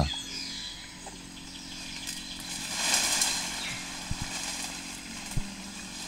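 Rainforest background sound: a steady high hiss of forest life that swells about three seconds in, with a few soft low thumps.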